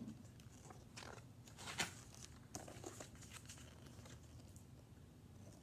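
Faint paper rustling and a few soft clicks as a picture book's pages are turned and handled, over a low room hum.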